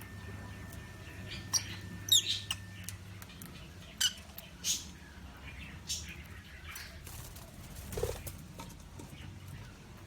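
Small birds giving short, high chirps and squeaks, scattered about one a second, with one wavering call about two seconds in. A low steady hum lies beneath.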